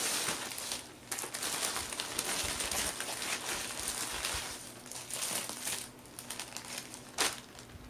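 Plastic shipping bag crinkling and rustling as it is opened and handled, in uneven bursts that thin out near the end, with one sharp tap about seven seconds in.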